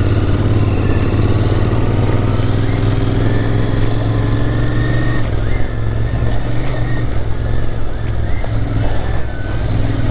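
Royal Enfield Interceptor 650's parallel-twin engine running at low revs while the bike is ridden over rough off-road ground. The engine note is steady for about five seconds, then turns uneven as the throttle is eased on and off.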